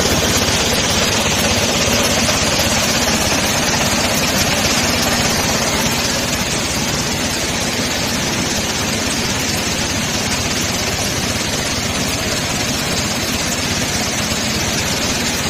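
M-sand washer running: a steady, dense mechanical noise of the drive and the wet sand being worked, easing slightly about six seconds in.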